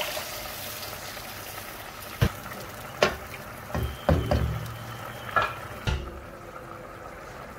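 Water poured into a pan of hot oil and fried whole spices, sizzling and hissing, the sizzle dying down over the first second or two. A few knocks and clinks of a wooden spoon against the pan follow, and a glass lid is set on the pan about six seconds in, after which the hiss drops away.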